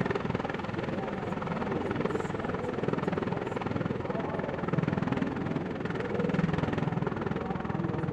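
MV-22B Osprey tiltrotor running its proprotors in helicopter mode as it descends and touches down: a loud, steady rapid rotor beat with the engines' whine, swelling in loudness about halfway through.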